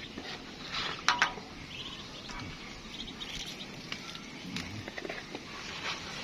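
Ducklings peeping faintly and repeatedly, with two sharp clicks about a second in.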